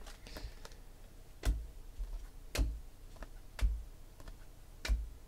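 A stack of 2016 Panini Select football cards being flipped through one card at a time in the hand, each card moved to the stack with a sharp tap or snap about once a second, four times.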